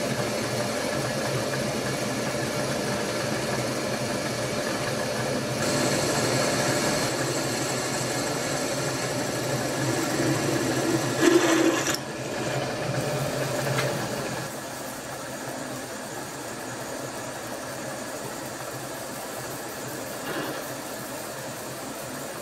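Vertical milling machine running as a twist drill bores mounting holes into a clamped metal block, then a counterbore cutting the holes out. The machine sound changes abruptly about twelve seconds in and turns quieter a couple of seconds later.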